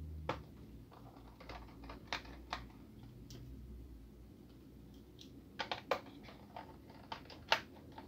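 Light, scattered clicks and taps of a small screwdriver working the battery screws in a laptop's plastic bottom case. There is a quick run of clicks a little past halfway and a sharper click near the end.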